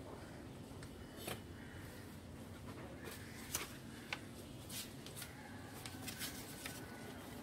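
Faint handling sounds of hand screen printing: card sheets sliding and rustling, with a few short sharp clicks and taps as the hinged wooden screen frame is raised and lowered over the card.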